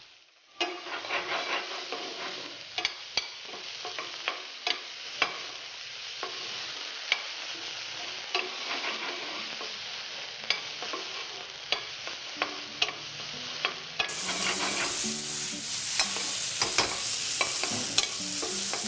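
Cauliflower keema frying in a pan, sizzling as a spatula stirs it, scraping and tapping the pan in many sharp clicks. The frying gets louder about two-thirds of the way through.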